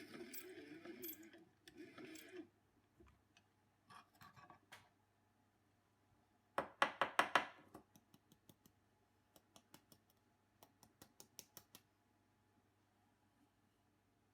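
Coffee gear being handled at a ROK manual grinder and espresso machine: a rough grinding sound that stops about two seconds in, then scattered light clicks and a quick run of about six sharp taps about seven seconds in, followed by more light clicks.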